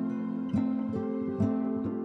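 Soft instrumental background music of plucked strings, a few plucked notes ringing over held tones.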